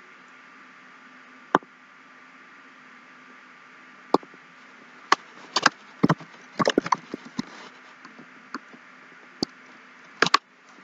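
Scattered sharp clicks of a computer mouse and keyboard, a few on their own and a quick run of them around the middle, over a faint steady hiss and low hum.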